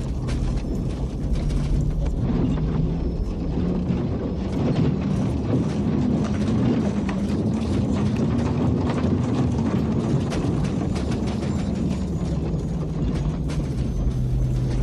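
B-52 bomber cockpit noise: a steady low engine drone with continual rattling and clattering of the airframe, and a low tone that wavers up and down through the middle.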